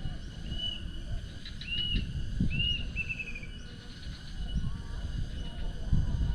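A bird calls in short arched whistles, four notes in the first three seconds or so, the last running into a quick falling trill, over a steady low rumble.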